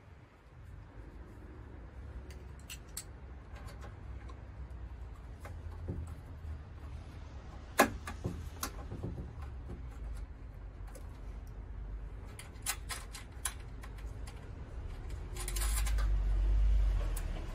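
Scattered light clicks and taps of a metal mounting bracket being handled and pressed onto a solar panel's frame, with one sharp click about eight seconds in. Wind rumbles on the microphone, with a louder gust near the end.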